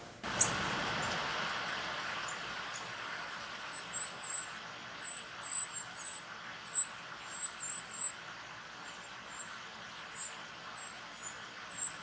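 Northern cardinal nestlings begging for food: many short, very high-pitched calls in quick clusters, starting about four seconds in. About half a second in there is a sharp click, the loudest moment, followed by a hiss that fades.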